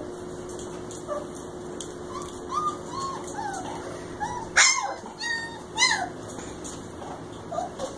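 Three-week-old German Shepherd puppies whimpering and squeaking in short, high-pitched cries, with two louder yelps a little past halfway.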